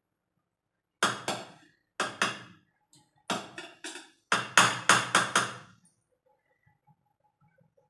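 Metal spoon knocking against a large aluminium pot of cooked rice: about a dozen sharp, ringing knocks in quick groups of two to five, stopping about six seconds in.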